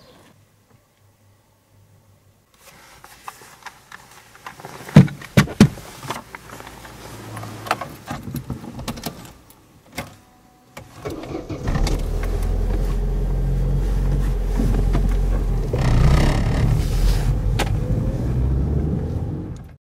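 Handling noises inside a car: clicks, a few sharp knocks and rattling like a door shutting and keys being handled. About twelve seconds in, the car's engine starts and keeps running with a steady low hum.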